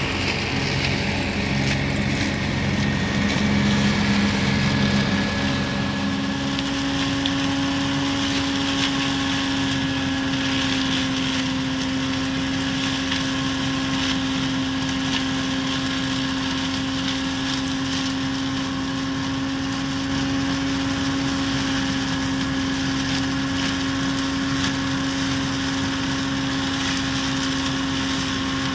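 Yanmar FX215 compact tractor's diesel engine running under load, driving a tractor-mounted flail mower (mulcher) that chops standing corn stalks. A low pulsing throb in the first few seconds gives way to a steady, even hum about six seconds in.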